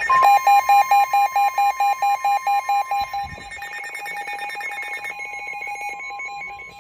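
Several NOAA weather radio receivers alerting at once for a Special Marine Warning: the steady weather radio warning alarm tone with pulsing electronic beeps over it, about four a second. After about three seconds the loud beeping gives way to a softer, faster pulsing.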